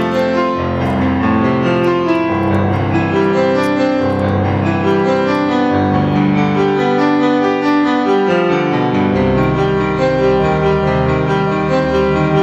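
Instrumental background music led by piano, playing held chords that change every second or two, with no singing.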